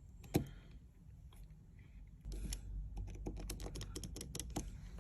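Small, rapid clicks and ticks of a precision screwdriver and tiny screws as the screws of an internal plate are driven back into an iPhone, with one sharper click about half a second in and a dense run of clicks over a low rumble in the second half.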